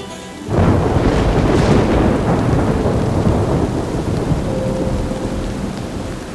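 A thunderclap breaks suddenly about half a second in and rumbles on, slowly fading, over a heavy downpour of rain.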